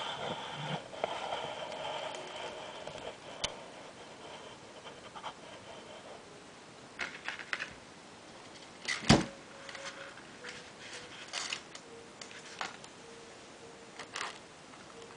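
Scattered small clicks and taps, with one louder knock about nine seconds in, over a faint steady whine at the start.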